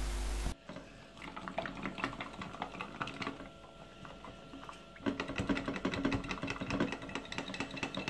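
A steady hiss cuts off abruptly about half a second in. Then come small clicks and clinks of wiring-loom connectors knocking against glass jars as they are dipped and swished in a vinegar-and-salt solution, with light sloshing of liquid. It gets busier and louder from about five seconds in.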